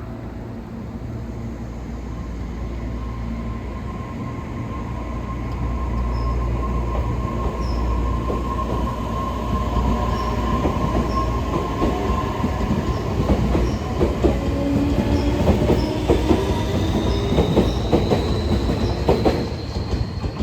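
Tobu 60000 series electric train pulling out of a station and speeding up. Its wheels click over the rail joints, getting louder and more frequent, over a steady rumble. In the second half a thin motor whine rises in pitch as it gathers speed.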